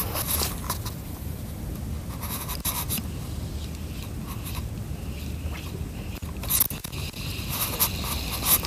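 Shimano Stradic spinning reel being cranked to retrieve a lure, a soft scraping whir broken by a few sharp clicks.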